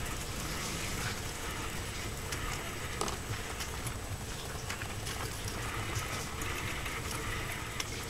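Pet mice scurrying over wood-shaving bedding and the cage's plastic and wood: a light crackling patter with scattered small clicks over a steady hiss.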